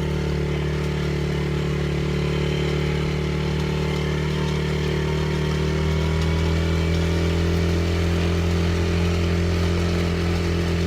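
ATV (four-wheeler) engine running steadily at a constant speed, getting slightly louder about six seconds in.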